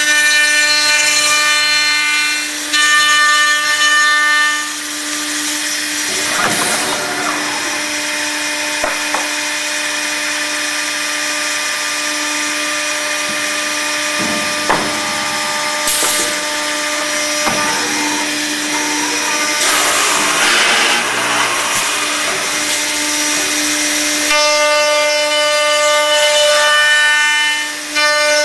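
Accu-Systems HVPP cup-hinge boring and routing machine at work: its spindle motors run with a steady multi-tone whine that starts and stops several times, alternating with stretches of rasping cutting noise as the bits go into the wood, plus a few sharp clicks.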